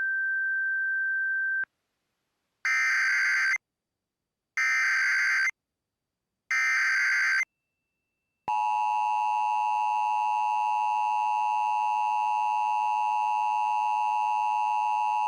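Emergency Alert System tones: a steady high beep lasting under two seconds, then the three one-second bursts of the digital SAME header, each a harsh buzzy warble, spaced about a second apart. About halfway through, the EAS two-tone attention signal starts and holds steady.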